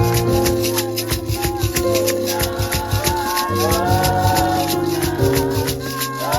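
Music with a quick, even shaker rhythm over held chords and a melody line.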